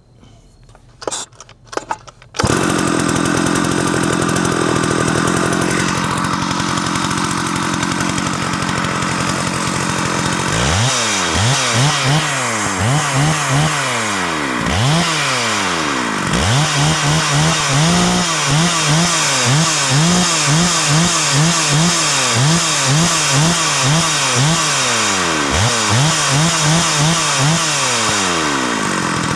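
Early Stihl 084, a large 122 cc two-stroke chainsaw, being pull-started: a few short pulls, then it catches about two seconds in and idles. From about ten seconds in it is revved up and down over and over, roughly once a second. It is tuned a little rich, and while it runs the owner hears a noise in the clutch that seemed out of place.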